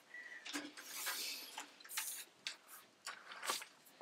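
Reed lashing being worked around a basket rim and pulled through between the spokes: a run of short scraping and rustling strokes of reed rubbing on reed.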